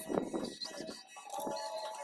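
Background music; a note is held steadily through the second half.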